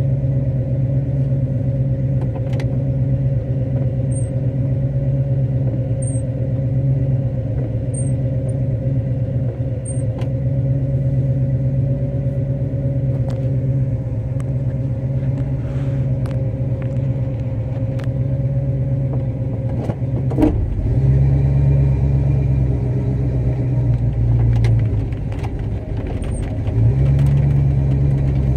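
A 1965 Pontiac LeMans engine running steadily, heard from inside the car, with its note changing about two-thirds of the way through. Faint scattered ticks sound over it.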